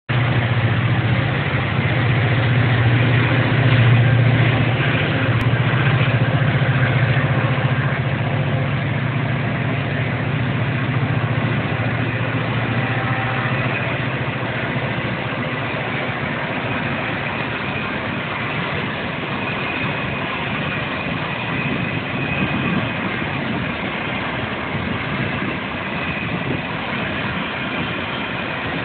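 Road vehicle engines idling at a traffic intersection. A deep engine hum is loudest for the first eight seconds or so, then eases into a steady mix of engine and traffic noise.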